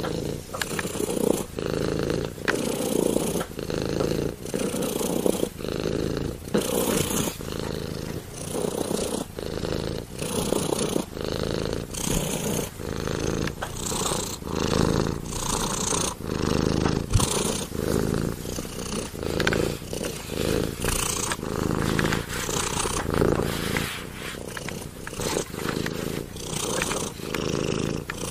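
Domestic cat purring steadily, the purr swelling and easing in an even rhythm with each breath in and out, about once a second.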